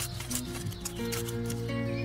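Background music: held notes with a few light ticks in the first second.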